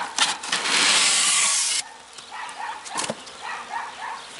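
Polystyrene insulation board dragged out against the wooden hive body. A few clicks, then about a second and a half of loud scraping that stops abruptly, and a single knock a little later.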